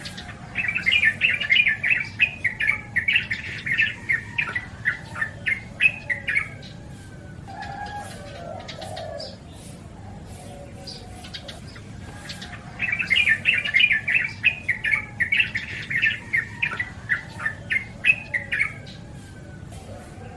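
Yellow-vented bulbul singing: two long bouts of quick chattering notes, each about six seconds, with a fainter lower call in between.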